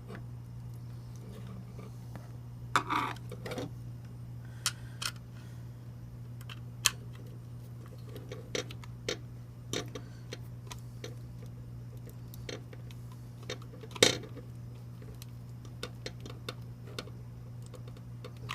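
Scattered light clicks, taps and short clatters of fire-alarm wiring and hardware being handled, with a louder knock about three-quarters of the way through, over a steady low hum. No alarm horn is sounding.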